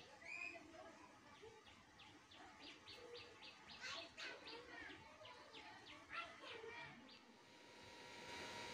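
Faint birds chirping, one giving quick runs of short high notes at about five a second.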